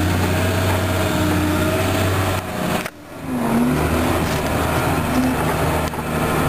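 Engine of a tracked snow-trail groomer running steadily under load, heard from inside the cab. It drops out briefly about three seconds in and picks up again at a slightly different pitch.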